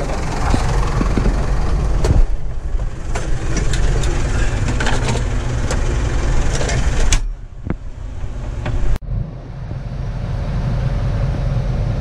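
New Holland tractor's diesel engine running, heard from inside the cab, with frequent rattles and knocks from the cab and loader. The sound dips sharply about seven seconds in and changes abruptly about nine seconds in.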